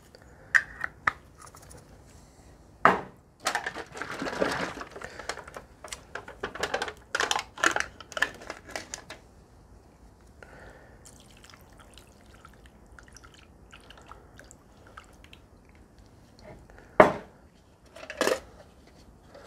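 Food-preparation handling sounds over a glass bowl of raw chicken. Salt and pepper go in, buttermilk is poured in, and the pieces are mixed wet by gloved hands. Two sharp knocks near the end are the loudest sounds.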